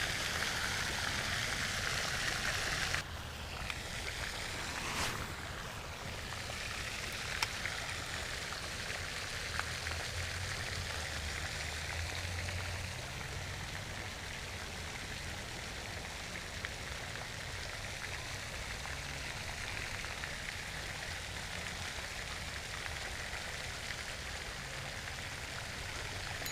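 Steady outdoor background hiss, a little louder for the first three seconds and then lower, with a couple of short soft knocks and a few faint ticks.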